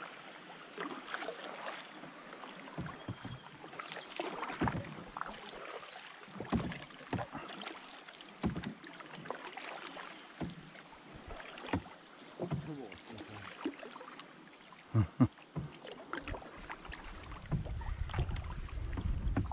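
Canoe paddles dipping and pulling through calm river water: irregular splashes and drips, about one stroke a second or so. Near the end a low wind rumble on the microphone comes in.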